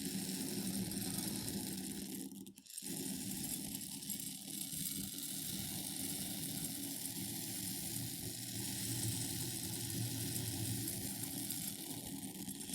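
Buckwheat grains being poured into a glass bowl in a steady stream, with a brief break about two and a half seconds in.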